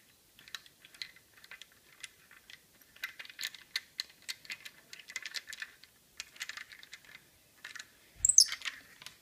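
Light plastic clicks and rattles from a small ball-head mount being handled and screwed onto the threaded stud of an LED ring light, in quick irregular runs. A louder knock comes near the end.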